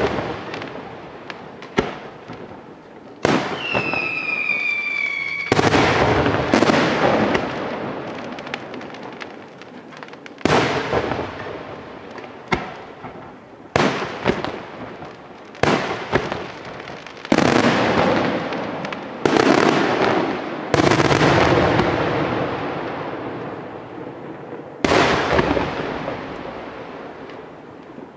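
Aerial firework shells bursting one after another: about fifteen sharp bangs at uneven intervals, each trailing off in a long echoing rumble. About three and a half seconds in, a high whistle sounds for two seconds, dropping slightly in pitch, and ends with a loud burst.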